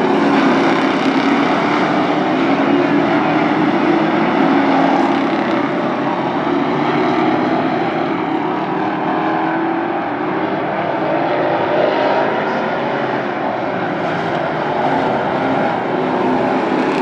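Several late model race cars running laps together on a short oval, a steady engine drone whose pitch slowly rises and falls as the pack goes round.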